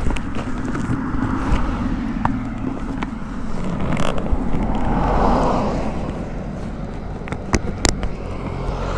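Yamaha R15's single-cylinder engine idling with a steady low hum while the bike stands still, as a car passes by on the road about halfway through. A couple of sharp clicks come near the end.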